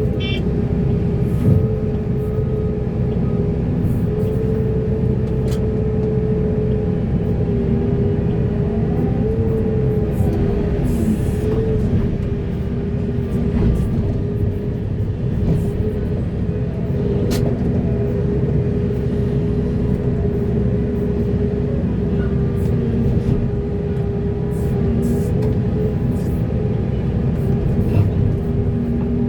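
Heavy excavator's diesel engine and hydraulics running steadily under load, with a low rumble, a held whine that wavers slightly in pitch, and a few short knocks.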